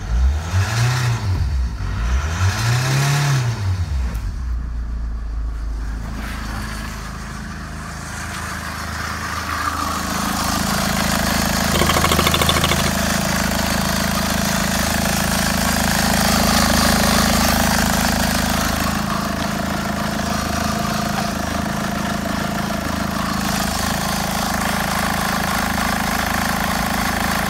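Opel Zafira A's 2.0-litre X20DTL four-cylinder turbodiesel engine revved briefly twice in the first few seconds, rising and falling in pitch, then idling steadily. It grows louder about ten seconds in, as heard close up in the open engine bay.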